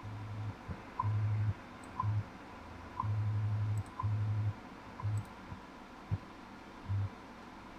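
WWV time signal on 10 MHz heard through a software-defined radio receiver: a short tick about once a second over static, with low hum pulses of varying length, the station's 100 Hz time code.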